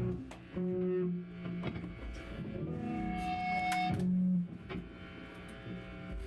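Live band music from a noise-rock set: a quieter passage of long held notes, each sustained for a second or more, with a few sharp attacks. It follows a louder strummed section.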